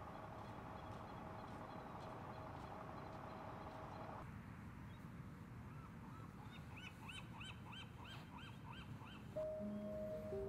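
Faint outdoor ambience with a steady low hum that cuts off suddenly about four seconds in. Later an animal calls a quick run of about eight high chirps, each rising and falling. Soft sustained music notes come in near the end.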